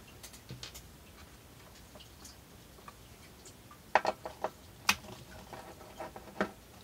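Scattered sharp clicks and taps of a screwdriver working screws on a turntable's metal chassis, with a quick cluster about four seconds in and a few more near the end.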